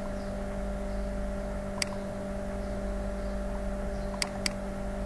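Computer mouse clicking three times, once about two seconds in and twice in quick succession near the end, over a steady low electrical hum.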